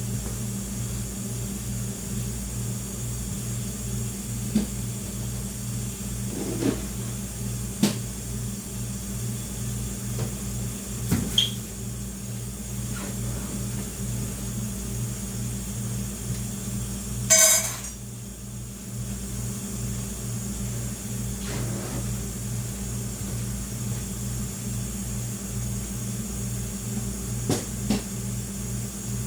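Steady low electrical hum with a slight even pulsing, broken by a few light clicks and knocks and one brief ringing clink about seventeen seconds in.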